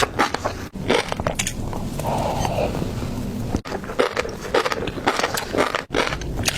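Close-up eating of oilfish roe: crisp crunching bites and clicking chews, broken by sudden cuts about three times.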